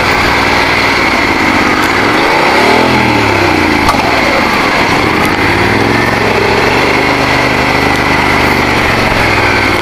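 Motorcycle engine running under way, its pitch rising and falling twice as the revs change, over a steady rush of wind and road noise.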